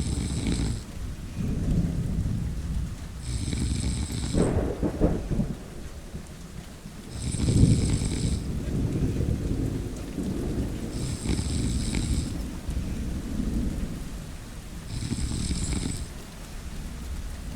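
A person snoring, one snore about every four seconds, over steady rain and rumbling thunder.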